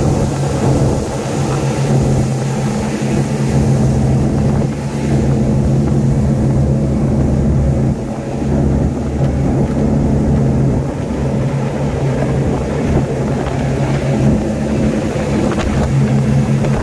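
Twin Suzuki outboard motors running steadily at speed, a constant low engine drone under the rush of wind and water from the boat's wake.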